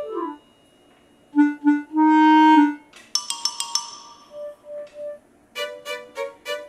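Background music: a melody that opens with a falling slide and a few held notes, then runs of short, quick notes.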